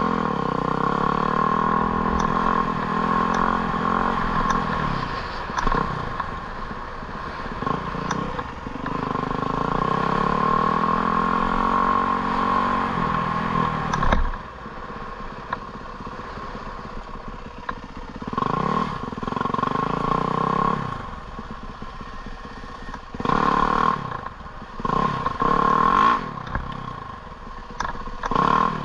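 A small engine revving up and down, its pitch falling and climbing again over the first half. About fourteen seconds in it drops with a knock, then comes back in several short bursts of revving.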